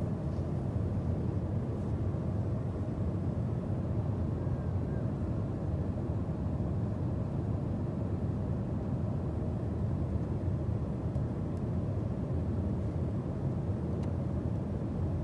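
Steady cabin noise of a Boeing 777-200ER airliner in cruise, heard inside the rear economy cabin: an even low rush of airflow and engine noise. A faint click near the end as the seat-back tray table latch is handled.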